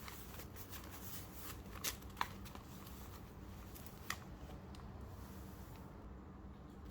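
Paper pages being handled and shuffled into place, with a few light, sharp taps.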